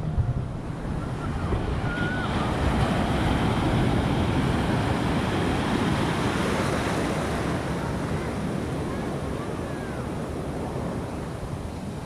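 Big ocean waves breaking into surf, white water rushing in across the shallows. The rush builds over the first few seconds and slowly eases off near the end.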